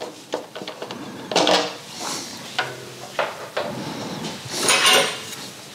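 Hand tools and metal parts being handled, clinking and clattering in a series of separate knocks, with the loudest clatter a little under a second before the end.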